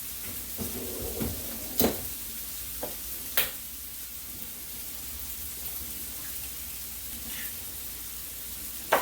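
Chopped vegetables sizzling steadily in olive oil in a skillet, with a few sharp taps of eggs being cracked against the pan: two about two and three and a half seconds in, and one at the end.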